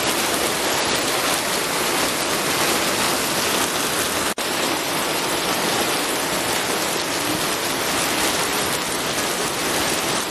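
Steady rain, an even hiss of falling drops, that cuts out for an instant about four seconds in.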